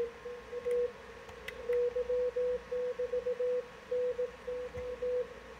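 Morse code (CW) signal on the 20-metre amateur band at 14.034 MHz, received on a ham radio: a single-pitched beep keyed on and off in dots and dashes, with a short pause about a second in.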